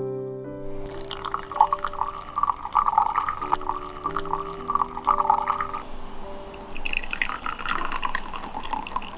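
Water poured in a thin stream onto loose tea leaves in a white ceramic teapot, splashing steadily. After a short pause about six seconds in, brewed tea is poured into a small ceramic cup. Soft music with sustained notes runs underneath.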